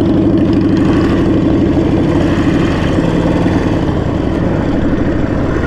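Harley-Davidson Sportster 1200's air-cooled V-twin idling steadily while the motorcycle is stopped.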